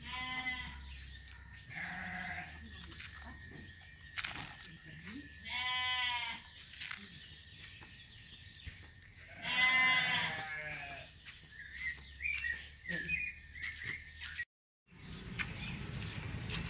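Repeated drawn-out animal cries: about four pitched calls, the longest near the middle lasting a second or more.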